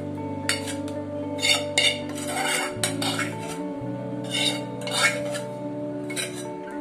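A metal spoon scraping and knocking against metal bowls as thick batter is scooped from one bowl into another. It gives a scatter of short clinks and scrapes over background music with steady sustained tones.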